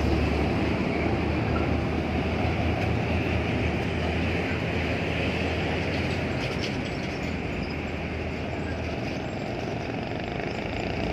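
Heavy diesel truck hauling a container semi-trailer drives past and away, its low engine drone slowly fading, amid other road traffic.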